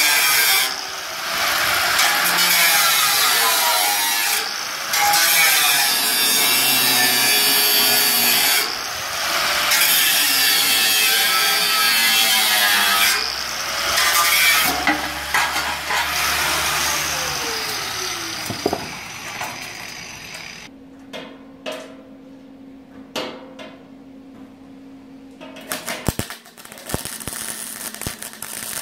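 Angle grinder with a cut-off wheel cutting through the metal rim of a bathtub, in several long passes with short breaks. Its whine then fades, falling in pitch as the disc winds down, leaving a quieter stretch of hum and small clicks.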